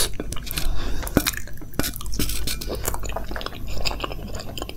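Close-miked wet chewing and mouth smacks on a soft, syrupy mouthful of gulab jamun in rabri, with scattered small clicks of a wooden spoon against a paper cup.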